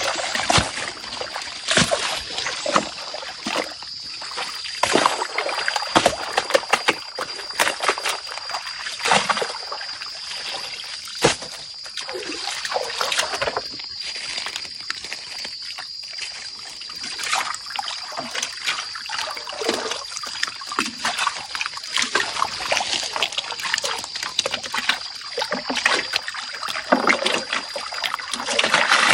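Water sloshing and splashing in a gold pan as it is swirled and dipped in shallow muddy water, with short knocks from gravel and the pan. A thin steady high tone runs underneath and stops near the end.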